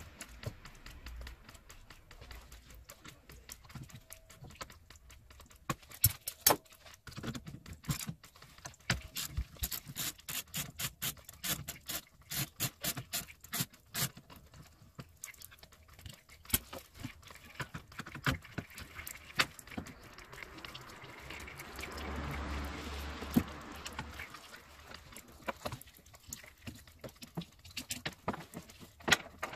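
Hand tools clicking and clattering on a car battery's terminals and fittings as the battery is unbolted for removal, with a quick run of close-spaced clicks partway through. A few seconds of rustling noise come about two-thirds of the way in.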